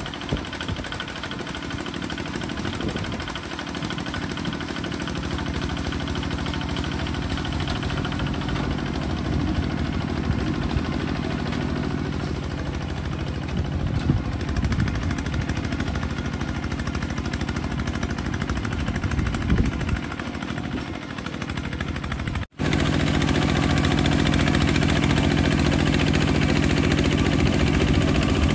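Small bulldozer's engine running, its pitch rising and falling a little with the work. About 22 seconds in the sound cuts off abruptly for an instant, then the engine is heard louder and steadier.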